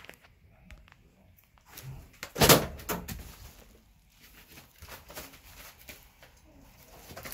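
Dog handling an empty plastic water bottle: small clicks and crinkles of the plastic, with one loud clatter about two and a half seconds in as the bottle hits the tile floor, and a smaller knock just after.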